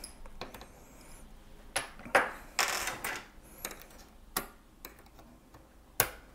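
Scattered light clicks and taps of small hand tools being picked up and set down on a desk and against a laptop's bottom cover, with a short scraping rustle near the middle and a sharper click about six seconds in.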